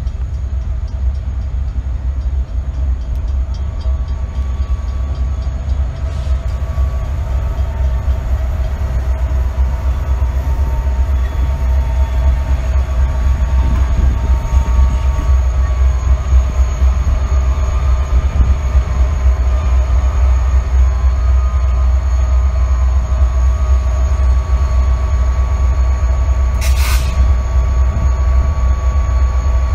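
Maryland Midland diesel-electric locomotives approaching and passing: a deep, steady engine rumble that grows louder from about twelve seconds in, with faint steady high tones over it. A brief hiss near the end.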